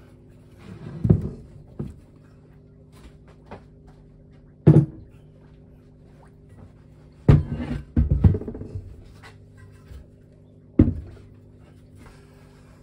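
Mazda RX-8 13B rotary engine side housings being handled and set down on a workbench: a handful of separate knocks and thuds a few seconds apart, with the sharpest ones near the middle. A faint steady hum sits underneath.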